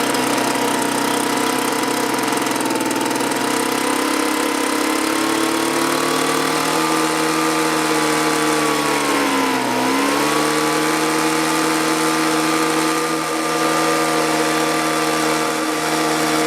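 Small two-stroke leaf blower engine running steadily on a new aftermarket carburetor. Its pitch climbs gradually, then dips briefly about ten seconds in and recovers. The low-speed mixture screw has just been turned out half a turn to richen it, because the engine would not run without half choke, which the owner takes as a sign it was not getting enough fuel.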